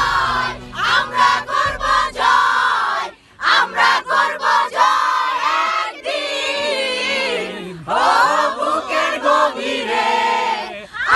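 A group of women singing and shouting a team chant together, loudly and in phrases broken by short pauses.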